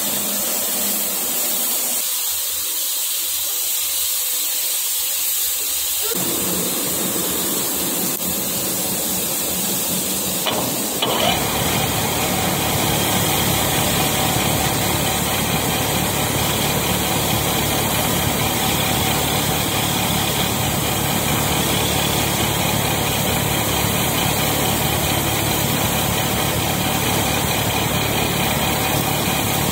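Metal lathe starting up with a click a little over a third of the way in, then running steadily with a hum and a few held tones. Before that there is a steady hiss.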